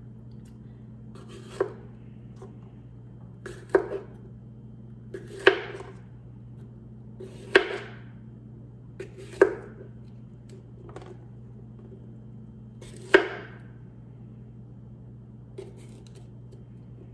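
Bell peppers being chopped: single sharp chops of a blade striking a cutting surface, about six strong strokes and a few lighter ones at uneven intervals of one to four seconds.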